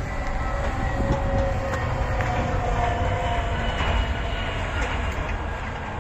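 Farm tractor towing a trailer drives past on the road, giving a steady low rumble of engine and rolling wheels.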